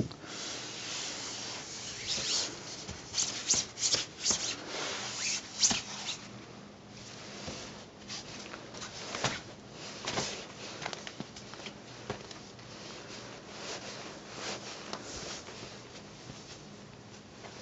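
A cat scrabbling and shifting about on a smooth fabric floor, making crackly rustles and scrapes. They come in quick clusters for the first several seconds, then turn sparser and softer.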